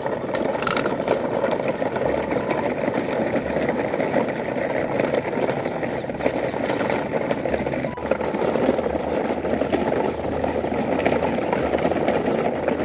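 Plastic wheels of a coupled toy-truck train rolling over dry leaf litter and dirt, with a steady crackling, rattling crunch.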